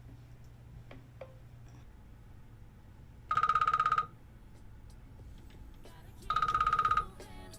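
A phone ringing: two short trilling rings, each under a second long, about three seconds apart.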